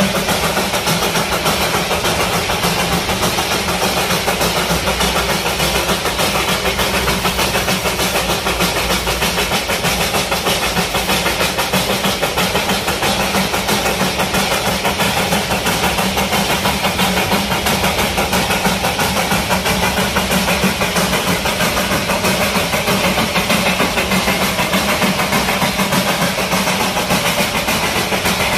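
Darjeeling Himalayan Railway B class steam locomotive at close range: a loud, steady mechanical running with a fast, even pulse over a low hum, unchanged throughout.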